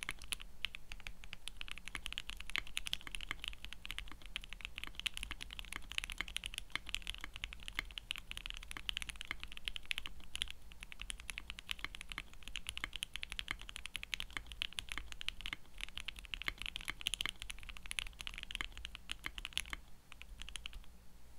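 Fast, continuous typing on a TKC Portico mechanical keyboard with lubed and filmed Everglide Water King linear switches and ePBT keycaps, built without silicone dampening in the case. The keystrokes stop shortly before the end.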